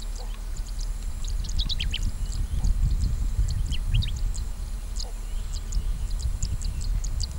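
Birds chirping in many short, high notes, over a low, uneven rumble.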